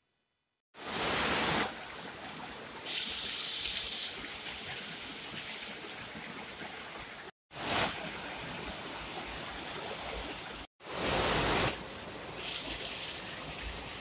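Small waterfall cascading over rocks, a steady rush of falling and splashing water. It comes in three stretches separated by abrupt cuts. Each stretch opens with about a second of louder rushing.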